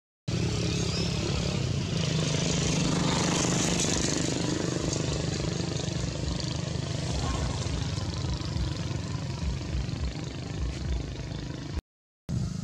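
A steady engine drone with a low hum, brightest in the first few seconds and easing slightly later on, cut off abruptly near the end.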